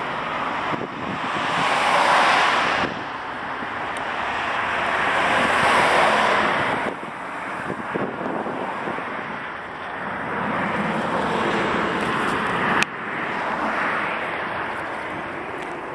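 Jet engine noise from a departing Boeing 737-700's CFM56-7B turbofans, heard as a broad rushing roar mixed with wind on the microphone. It swells and fades in waves and changes level suddenly a few times.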